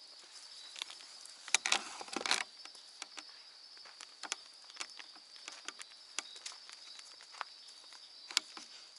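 A steady high-pitched chorus of night insects, with footsteps crunching through dry leaves and many small snaps and ticks. A louder spell of crunching comes about two seconds in.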